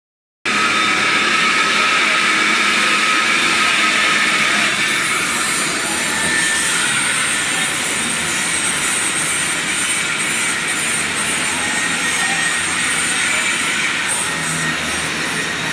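Continuous metalworking noise: a loud, steady high hiss with a faint whine in it, starting about half a second in.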